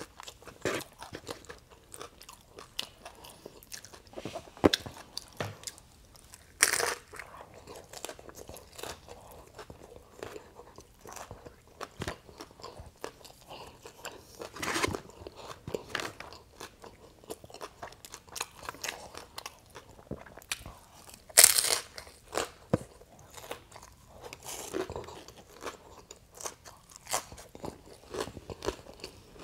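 Close-up chewing and crunching of crispy fried flautas: bites into the fried rolled tortillas and steady crackly chewing, with sharper loud crunches about 7 and 21 seconds in.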